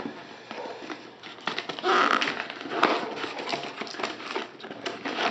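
Cardboard shipping box being handled and opened: irregular taps, crackles and rustling of cardboard and packing, with a louder rustle about two seconds in.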